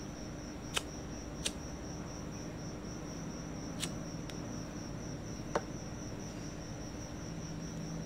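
A cricket trilling steadily in a continuous high-pitched trill, over a faint low hum, with several sharp clicks scattered through.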